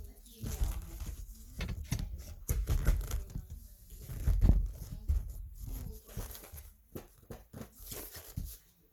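Rustling and handling noise close to the microphone, with scattered clicks and low thuds, loudest about halfway through.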